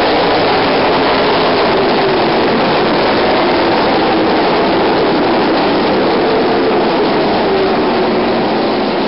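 A pack of ARCA full-bodied stock cars racing on a dirt oval, their V8 engines making a loud, steady, unbroken engine noise.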